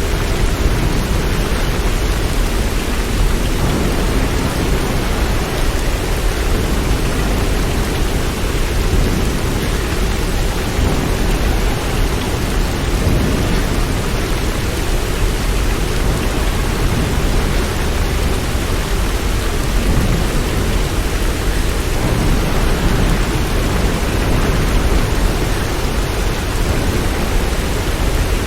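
Steady rain: an even, unbroken hiss with a strong deep rumble underneath.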